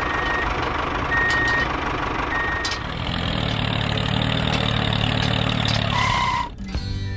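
Heavy vehicle engine running with a reversing alarm beeping three times about a second apart, then settling into a steady low hum. It ends in a short higher tone and cuts off suddenly near the end.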